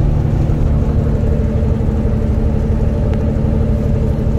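Semi-truck's diesel engine and road noise heard from inside the cab at highway speed: a steady, even low drone.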